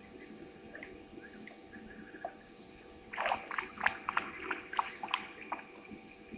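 Night insect chorus of crickets with a fast, even, high pulsing trill. From about three seconds in, a run of short sharp clicks cuts across it, the loudest sounds here.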